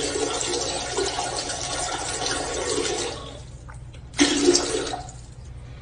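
A toilet flushing: a loud rush of water that dies away about three seconds in, followed by a shorter burst of sound a second later.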